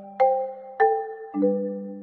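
Background music of chiming, bell-like notes: three chords struck about half a second apart, each ringing and fading over a held low note.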